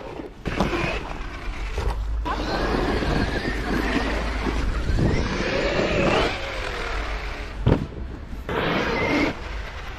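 Traxxas X-Maxx 8S RC monster truck driving, its brushless motor whining up and down in pitch with the throttle over a steady rush of drivetrain and tyre noise. A single sharp knock about three quarters of the way through.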